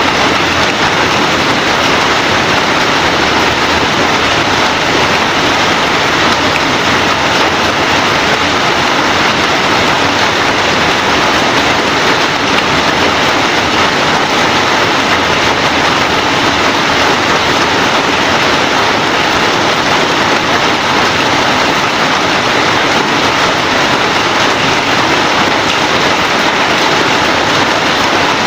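Heavy rain falling, a steady, dense hiss that holds level throughout.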